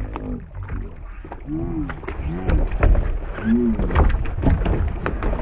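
A fishing kayak capsizing: sharp splashes and knocks of the hull and gear hitting the water over a heavy low rumble, loudest about halfway through, with several short cries of alarm.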